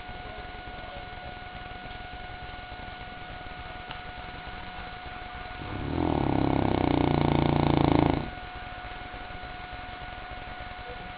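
St. Bernard dog snoring in its sleep: one long snore about six seconds in, swelling for a couple of seconds and then stopping abruptly.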